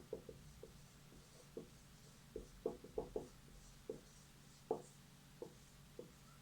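Faint handwriting on a board or page: a string of short, irregular taps and strokes, closer together in the middle.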